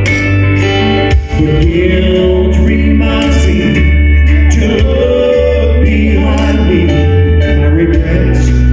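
Male Southern gospel vocal group singing live into handheld microphones, over instrumental accompaniment with a strong bass line.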